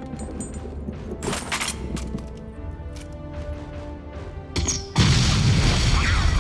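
Action-film soundtrack: a music score under booming impacts, one about a second in, then a sudden loud blast about five seconds in that runs on as a heavy roar.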